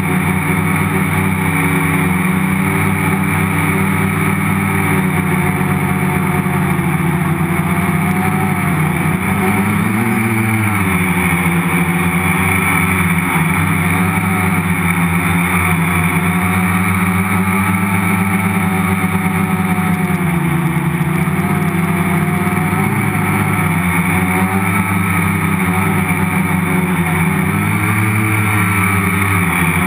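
Multirotor's electric motors and propellers humming steadily and loudly, heard from a camera mounted on the frame. The pitch briefly rises and falls about ten seconds in, again around twenty, and near the end.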